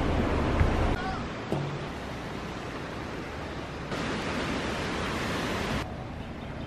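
Steady rushing outdoor noise, with gusty low rumble of wind on the microphone in the first second.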